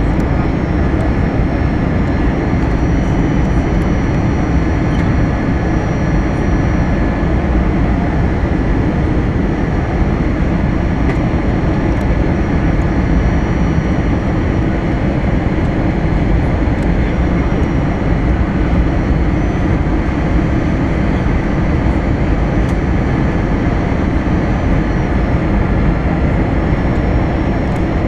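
Jet airliner cabin noise during the descent: a steady roar of the turbofan engines and the airflow past the fuselage, with a faint steady whine above it.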